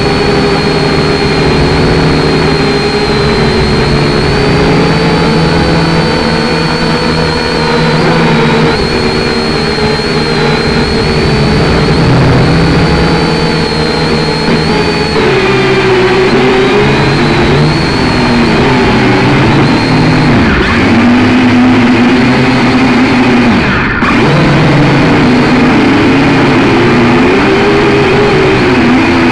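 Syma X5C quadcopter's small brushed motors and propellers whirring loudly, heard up close through the drone's onboard camera, the pitch drifting up and down as the throttle changes, with a steady high whine over it.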